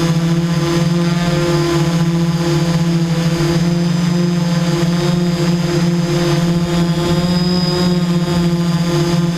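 Small multirotor drone's electric motors and propellers running steadily in flight, heard up close through the camera it carries: a loud, even buzzing hum whose pitch wavers slightly.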